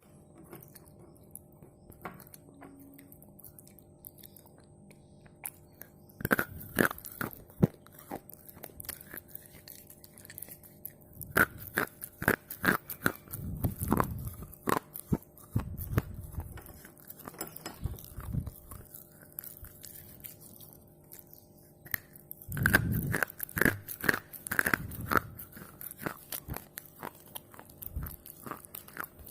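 Close-up biting and chewing of red slate pencils: brittle crunches that come in three bouts, with quieter chewing between.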